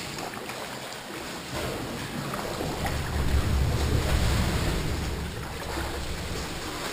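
Sea swell washing and sloshing inside a sea cave around a kayak, with a deep surge that swells up about three seconds in and eases off a couple of seconds later.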